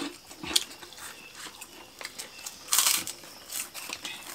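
Close-up eating sounds of people eating rice with their hands: soft chewing and mouth clicks, with one louder short burst of noise about three seconds in.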